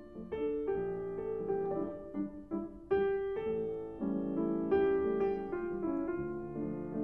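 Piano music playing a slow melody of single notes and chords, each note struck and left to fade.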